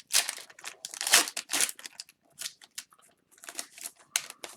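Foil trading-card pack wrapper crinkling in quick irregular bursts as hockey card packs are handled and opened.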